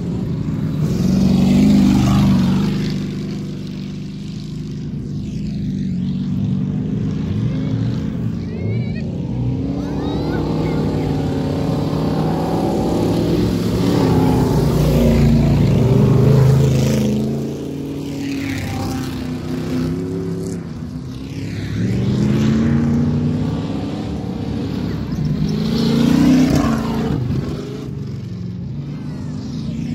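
Old race cars on a dirt track driving past one after another, their engines revving and swelling as each goes by. The loudest pass comes about halfway through.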